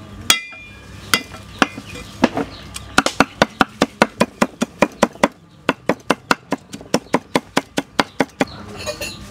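Cleaver chopping garlic on a round wooden chopping block. A few single blows come first, the first with a short metallic ring from the blade. Then quick, even mincing follows at about six strokes a second, with a brief pause about halfway, and stops near the end.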